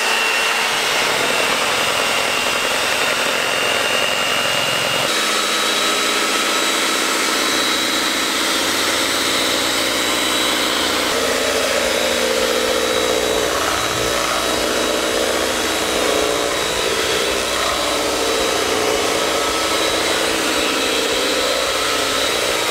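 Electric hand mixer running steadily, its beaters whipping cream in a bowl; its tone changes about five seconds in.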